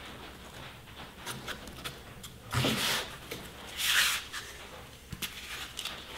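A hand sweeping sanding dust off a body-filler patch on a bare metal panel: two brief swishes, about two and a half and four seconds in, with small scattered clicks between them.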